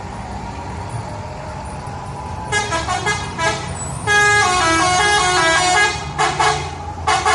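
Indonesian bus 'telolet' horn, a multi-tone musical horn: a few short toots start about two and a half seconds in, then a longer run of changing notes plays a tune, and a few more short toots come near the end. Steady low bus engine and traffic noise underneath.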